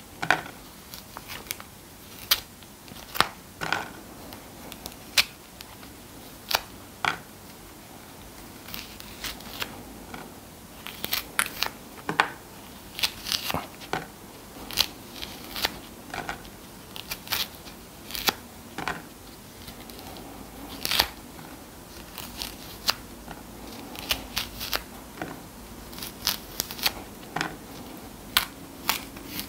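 Lemon peel being torn and snapped off a whole lemon by hand, piece by piece: irregular crisp snaps and tearing clicks, sometimes several in a quick run, heard up close.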